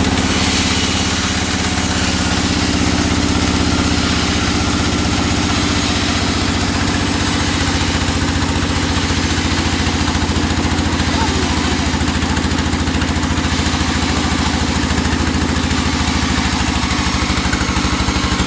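An engine running steadily at a constant speed, with a fast, even pulse that does not change, most likely the engine powering the wood saw.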